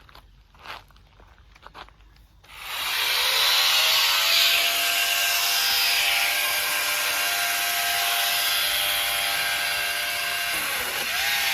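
A 60 V cordless multi-tool's electric motor starts about two and a half seconds in with a rising whine, then runs steadily at high speed with a loud hiss. Near the end it slows briefly and picks up speed again.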